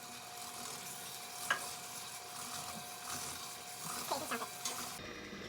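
Frosting mixture being stirred in a bowl: a steady swishing and scraping with a few light clicks. A faint steady hum runs underneath.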